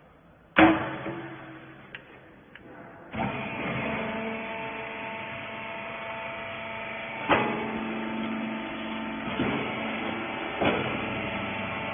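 A hydraulic baling press: a loud metallic clank about half a second in that rings and fades, then from about three seconds in the machine's motor and hydraulic pump running with a steady hum, with a few sharper knocks over it.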